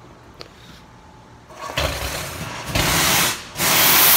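Compressed air and water blasting out of the drain hose of an air compressor's wet tank as it is drained by hand. A hiss builds up about one and a half seconds in, then two loud blasts near the end.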